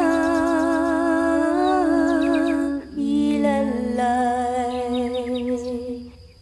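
Two women's voices singing a Kalinga song in close harmony, holding long notes with vibrato. They break briefly about three seconds in, drop to a lower held phrase, and fade near the end.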